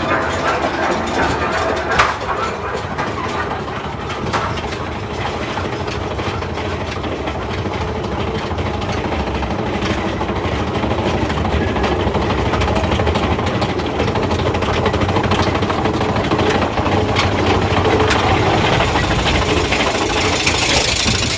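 Big Thunder Mountain Railroad mine-train roller coaster running along its track: a steady loud rumble and rattle, with one sharp clack about two seconds in.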